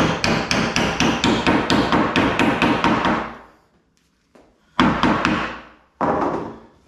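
Hammer tapping tight-fitting locating pegs, not made for this worktop jig, into its holes: quick light taps about three or four a second for three seconds, then, after a short pause, two single heavier knocks.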